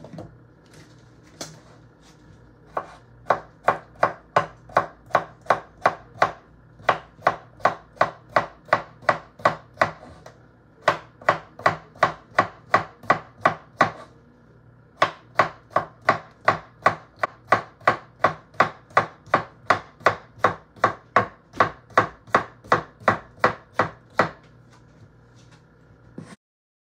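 Chef's knife slicing a cucumber on a wooden cutting board: an even run of chops, about two to three a second, with two short pauses.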